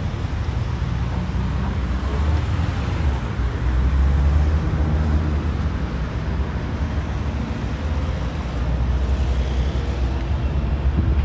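Steady low rumble of road traffic, with engine hum and tyre noise from passing vehicles.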